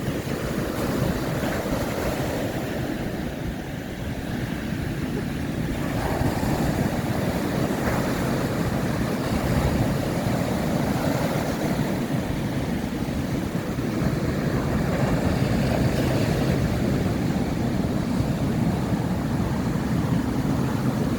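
Large ocean waves breaking and washing on a sandy beach: a continuous low rushing roar that swells and eases as the sets come in.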